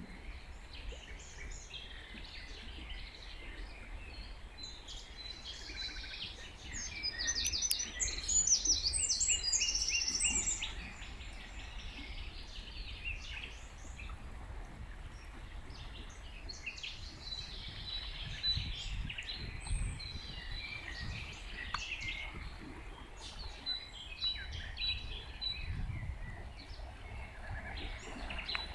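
Several songbirds singing and chirping over a low steady rumble, with a louder bout of fast, trilled song about a quarter of the way in.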